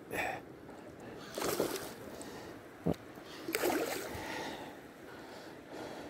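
Small pike being reeled in to an inflatable kayak: a few short splashy bursts at the surface and a sharp click near the middle, over the low wash of the river.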